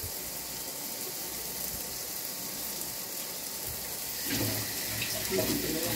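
Sliced onions and spices frying in oil in a nonstick wok on a gas stove: a steady sizzling hiss.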